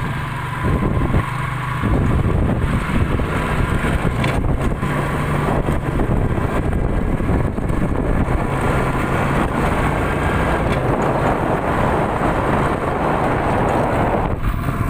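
Motorcycle engine running on the move, with a dense rushing noise over a steady engine hum that gets louder about two seconds in.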